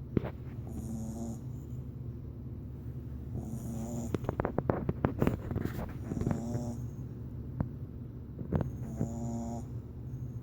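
Boston Terrier puppy snoring: a short pitched snore about every two and a half seconds, with a stretch of rapid, sputtering clicks in the middle.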